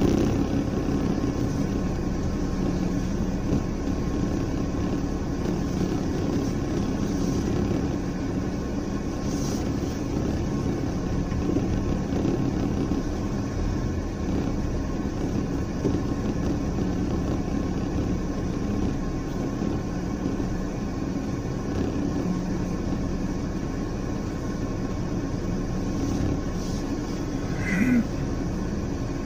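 A van's engine and cab noise at low speed, heard from inside the cab as a steady low drone. A brief squeak comes near the end.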